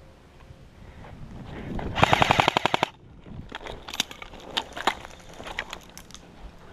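Airsoft M4A1 replica rifle firing one full-auto burst of about ten rapid shots lasting under a second, about two seconds in. Scattered light clicks and rustles follow.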